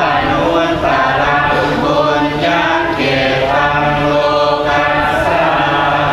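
Theravada Buddhist monk chanting in Pali, an intoned recitation held on a near-steady pitch with only brief breaks.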